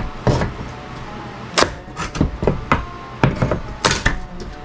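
Flat pry bar levering a trim board off a wall: a string of sharp knocks and cracks, about ten, as the bar bites and the board pulls away.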